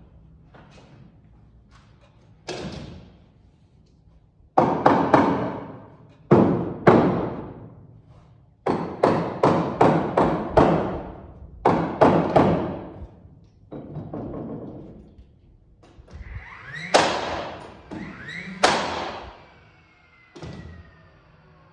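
A dozen or so sharp blows fastening the wooden floor truss together, irregularly spaced with a quick run of them about nine to eleven seconds in, each ringing out in the echoing metal building.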